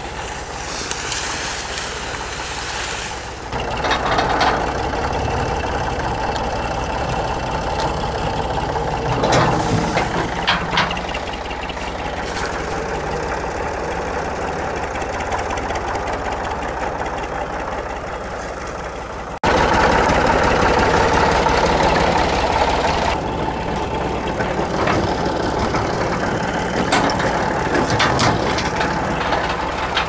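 Tractor engine running steadily, with a few sharp clanks about ten seconds in. It gets suddenly louder a little past the middle.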